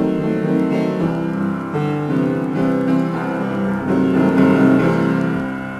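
Piano being played in free improvisation: a loud chord is struck at the start, then shifting chords and melody notes ring on, and the playing dies down near the end.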